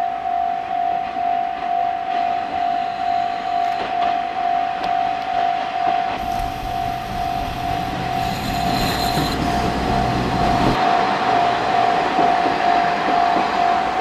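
Japanese level-crossing bell ringing in a steady, evenly repeating pulse while a two-car KiHa 40 diesel railcar train passes over the crossing. The train's low diesel rumble comes in about six seconds in and cuts off suddenly near eleven seconds, followed by rising wheel-on-rail noise.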